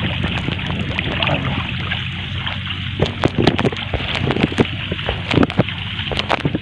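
Wind buffeting the microphone, then from about three seconds in, rapid irregular crackling and rustling as rice stalks and grass brush past it.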